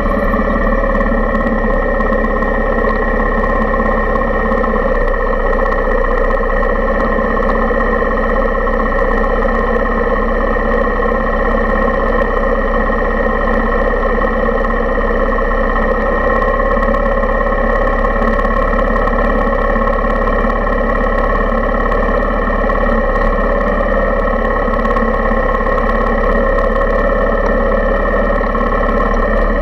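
Suzuki Intruder 125's single-cylinder four-stroke engine idling steadily, picked up by a camera mounted on the motorcycle's handlebar.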